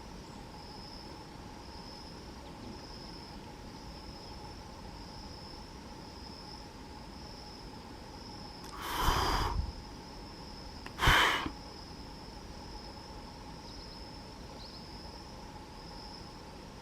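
Two loud, harsh calls of a red-tailed parrot (Amazona brasiliensis) about halfway through, the first about a second long and the second shorter. Behind them, insects keep up a steady, pulsing high drone.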